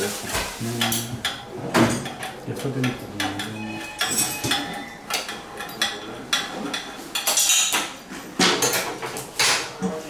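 Metallic clinks and knocks of steel exhaust header pipes and hand tools being handled while a Yamaha Tracer 900's exhaust is being changed. Low voices can be heard in the first few seconds.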